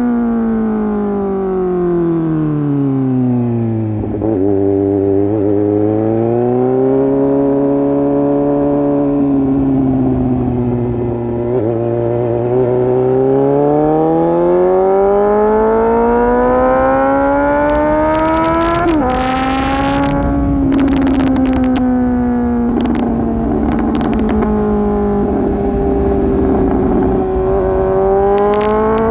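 Suzuki GSX-S750's inline-four engine through an open exhaust with the dB killer removed, heard while riding. The engine note falls and holds low, then climbs steadily under acceleration for several seconds. About two-thirds of the way through it drops abruptly with a brief cluster of sharp crackles, then eases down to a steady cruise.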